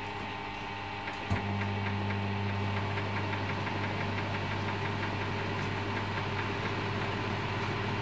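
Whirlpool microwave oven being set and started: a quick run of soft ticks, a click about a second in, then the steady low hum of the oven running on full power.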